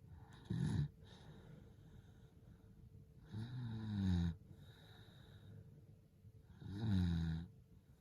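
A sleeping person breathing with light snoring: a short snore about half a second in, then two longer, low buzzing snores, one a few seconds in and one near the end, with soft breathing between.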